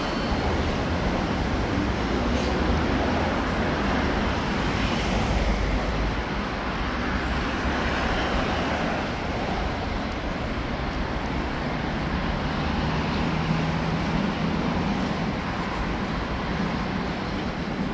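Urban road traffic: a steady wash of passing vehicles with a low engine rumble.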